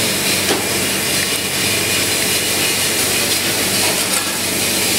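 Steady hissing roar of a high-pressure gas burner on a commercial kitchen range, firing under a pan, with a faint low hum underneath.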